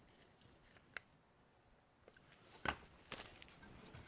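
Near silence: quiet room tone with a few faint handling clicks, the sharpest about two and a half seconds in.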